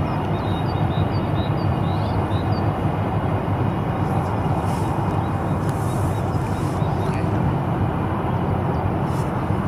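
Steady low rumble of a large ship under way, the container ship with its escort tug. A few short, high bird chirps come in the first few seconds.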